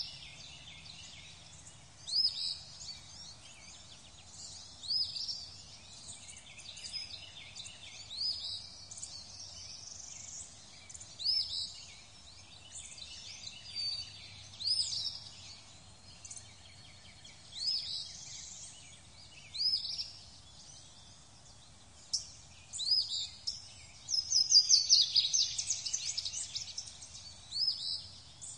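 Birds singing: a short, high call repeats about every three seconds over a faint background of other birdsong, and a fast trill of high notes comes in near the end.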